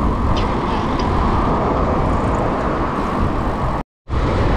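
Steady road noise while riding a bicycle along a city street: wind rumbling on the microphone mixed with passing traffic. It drops out completely for a split second near the end.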